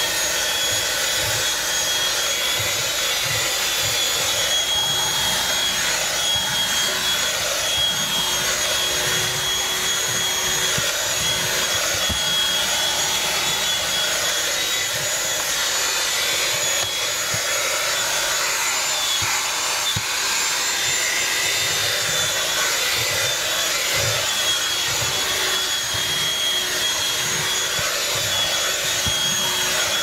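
Black & Decker PAV1205 Pivot 12-volt handheld car vacuum running steadily with a high motor whine while its nozzle is drawn over the carpet.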